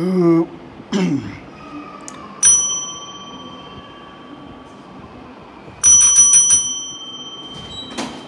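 Chrome desk service bell struck once and left to ring out, then tapped about five times in quick succession, calling an attendant to the desk.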